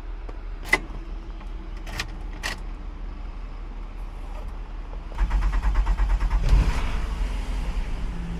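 A few sharp clicks, then about five seconds in a Nissan's starter cranks the engine for about a second until it catches and settles into a steady idle: the newly programmed key is accepted and the car starts.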